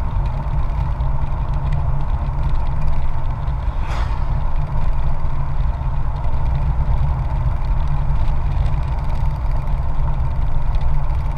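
Steady motorcycle riding noise: heavy wind rumble on the microphone over the drone of the engine. A brief swish about four seconds in.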